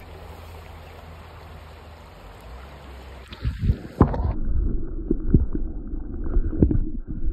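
Creek water running steadily. About four seconds in, the sound abruptly turns muffled and a series of low, dull thumps and knocks begins.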